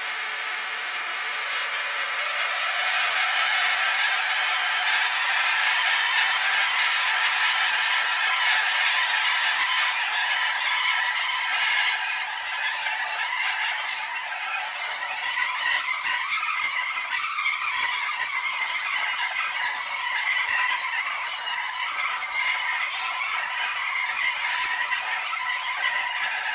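ZVS-driven spark-gap Tesla coil running: the spark gap firing at a high break rate and the arcs striking a grounded ball make a continuous, pretty damn loud buzzing crackle with a steady hiss high up.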